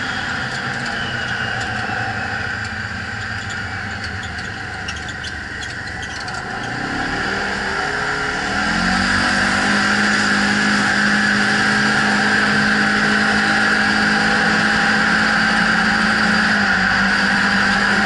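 Side-by-side UTV engine heard from the cab while driving on a snowy trail. It runs lighter for the first few seconds, then revs up with rising pitch about seven seconds in and holds a steady, louder drone at speed.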